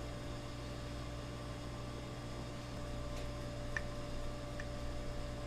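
Steady electrical mains hum with a hiss. A few faint light ticks come about three to five seconds in, as a small screw is turned into the 3D-printed plastic mouse body with a hand hex driver.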